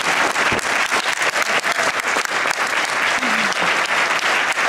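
Audience applauding: dense, steady clapping from many hands with no let-up.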